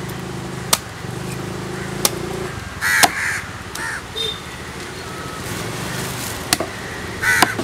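Crows cawing, a few harsh caws about three seconds in and again near the end. Sharp knocks of a knife striking the wooden cutting block come in between.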